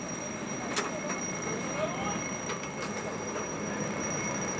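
Steady drone of fire apparatus machinery running on the fireground, with a thin, unbroken high-pitched whine over it and faint voices.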